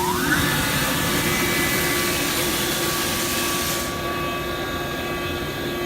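Ingersoll Rand UP6 10 HP rotary screw air compressor just switched on. Its motor whine rises in pitch for the first half second as it comes up to speed, then it runs steadily with a hum and an airy hiss. The hiss eases a little about four seconds in.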